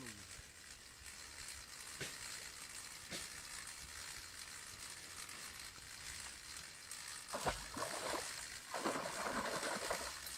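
Food sizzling in hot oil: a steady hiss with a few sharp ticks, growing louder for a stretch near the end.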